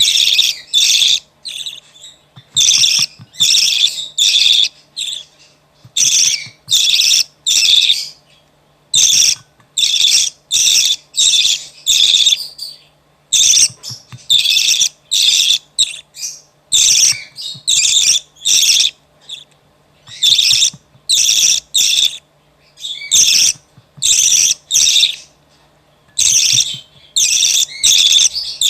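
Budgerigar chick giving harsh, raspy begging calls in quick groups of three or four, group after group with short pauses between: the food-begging of a chick being hand-fed.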